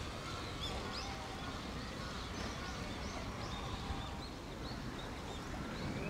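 A flock of bramblings calling: a scattered run of short, high chirps, some in quick succession, over a low steady background rumble.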